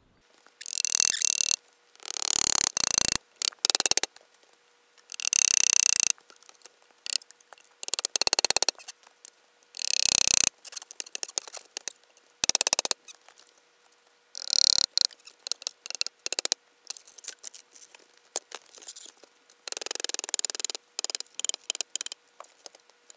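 A green log being split lengthwise with an axe and splitting tools: irregular bursts of wood cracking and fibres tearing apart, with some sharp knocks.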